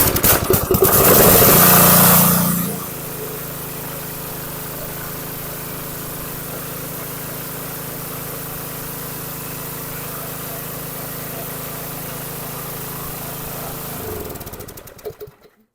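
Briggs & Stratton small engine on a Troy-Bilt pressure washer starting and running loud and uneven for the first couple of seconds, then settling into a steady run. It is shut off near the end and winds down to a stop. The run is a check after the engine was overfilled with the wrong (pump) oil and refilled to the proper level with 30-weight oil, with leftover oil still in the muffler.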